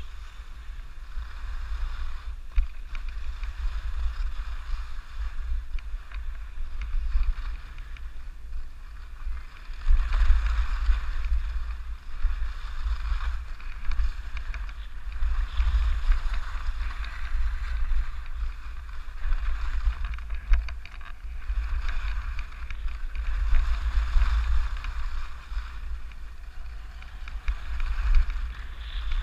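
Wind rumbling on the action camera's microphone while skis hiss and scrape over the snow, the hiss swelling and fading every few seconds with the turns.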